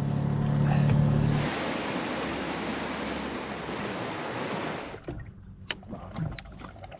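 A low steady hum stops about a second and a half in, giving way to a steady rush of sea water and wind around the boat that cuts off sharply about five seconds in. A few small clicks and knocks follow.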